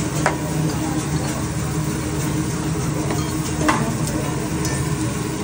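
Mushrooms, noodles and cabbage sizzling on a hot steel teppanyaki griddle as a hibachi chef stirs them with a metal spatula, which clinks sharply on the griddle twice, near the start and a little past halfway. A steady low hum runs underneath.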